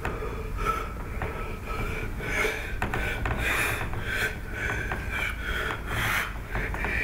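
A man's breathy mouth noises: irregular snorts, puffs and gasps over a steady low room rumble.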